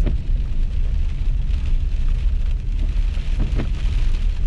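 Truck cabin road noise while driving: a steady low engine and road rumble with an even hiss of tyres on a rain-wet road.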